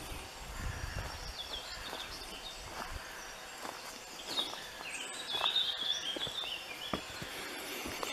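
Wild birds singing in short chirping phrases, loudest a little past halfway, with a few scattered footsteps crunching on a leaf-litter path.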